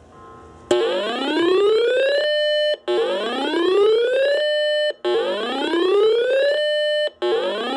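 Electronic siren alert: a wail that rises steeply, holds briefly and cuts off, starting about a second in and repeating every two seconds or so, three full times with a fourth starting near the end.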